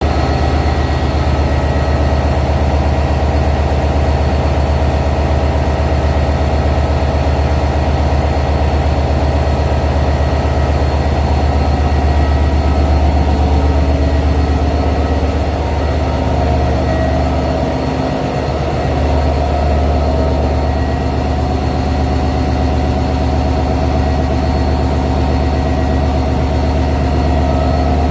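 EMD GT42ACL diesel-electric locomotive humming: a steady deep engine drone with thin steady high whines above it. The drone softens briefly about two-thirds of the way through.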